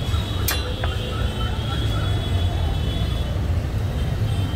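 Steady low street rumble, with a sharp metallic clink about half a second in and a fainter one near a second from a steel spatula against the steel griddle plate.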